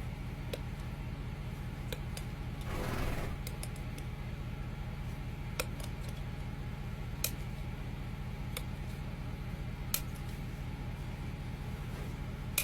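Hoof trimming: sharp single clicks and snips of farrier's tools cutting horn, spaced a second or more apart, over a steady low hum. A brief rushing noise about three seconds in.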